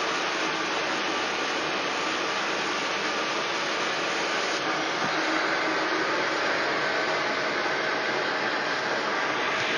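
Metal lathe running steadily while a large M45 tap threads the inside of a pipe part held in its chuck.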